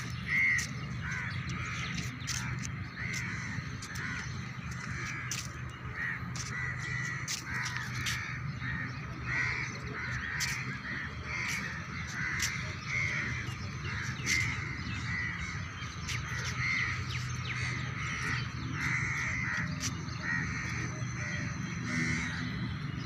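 A large flock of crows cawing, many calls overlapping several times a second, over a steady low hum.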